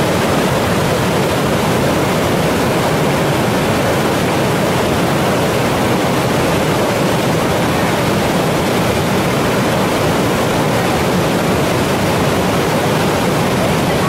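Whitewater rapids of a fast mountain river rushing over boulders: a loud, steady rush of water that stays even throughout.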